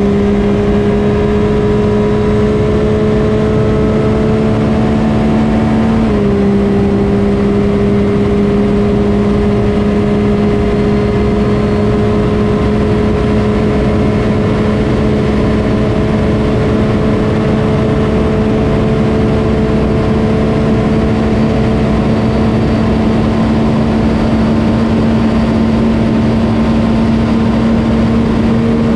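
Homemade naturally aspirated V12 race engine running flat out at high rpm, its pitch climbing slowly with a small drop about six seconds in, over heavy wind rush in the open cockpit at well over 200 mph.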